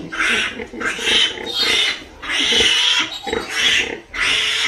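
Nursing piglets squealing in short, loud, high-pitched bursts, about one and a half a second.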